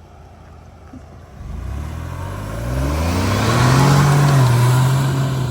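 Ford Bronco Wildtrak accelerating on a dirt track, its engine rising in pitch from about a second and a half in, with tyre and dirt noise swelling as it comes closest about four seconds in before easing off.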